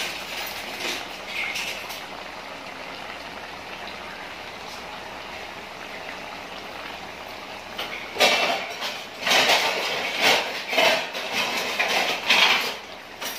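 Chicken and onion gravy boiling in an open aluminium pressure cooker on a gas burner, a steady bubbling hiss. From about eight seconds in there is a run of louder, irregular utensil clatters and scrapes.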